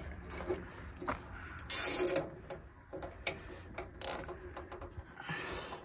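Zip tie being pulled tight through its ratchet, among small clicks and knocks of handling. The loudest zip comes about two seconds in, with a shorter one about four seconds in.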